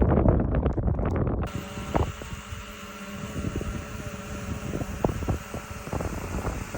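Wind buffeting the microphone, then, after an abrupt change about a second and a half in, a small drone's motors and propellers humming steadily with several held tones, with a few sharp clicks.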